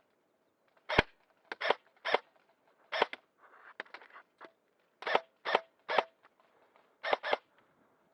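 Airsoft guns firing: about ten sharp, short pops in irregular groups, some in quick pairs, with the loudest shot about a second in.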